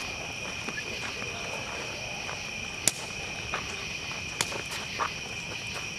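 Campfire burning retired flags, crackling with a few sharp pops; the loudest comes about three seconds in and another about a second and a half later. Under it, a steady high chorus of night insects.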